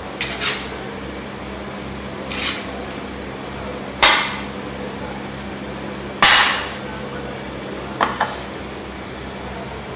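A metal ladle clanking against a large metal serving tray about half a dozen times while rice is scooped onto a plate. The two loudest strikes come about four and six seconds in and ring briefly, over a steady low hum.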